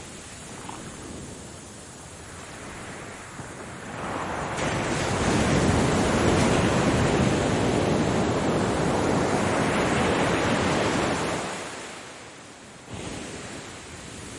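Ocean waves breaking on the shore. After a quieter wash, a wave breaks about four seconds in and rushes loudly for several seconds, then fades away. A new wash starts abruptly near the end.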